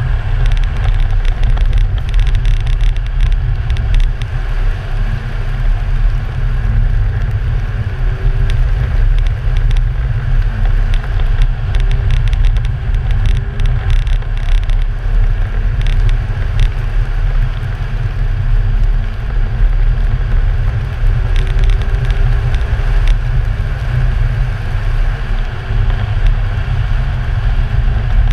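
Audi car driving on a snow-covered ice track, heard through a camera mounted on the outside of the car. Heavy wind rumble on the microphone covers the engine and the tyres running through snow, with scattered small clicks throughout.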